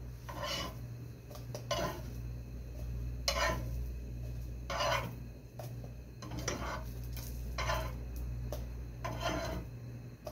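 Metal slotted spatula scraping across a black frying pan, about seven separate strokes a second or so apart, as a small pancake (marasi) is lifted out of the pan. A steady low hum runs underneath.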